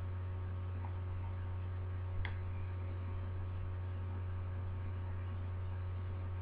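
Steady low electrical hum with a few faint higher steady tones, and a single small click about two seconds in.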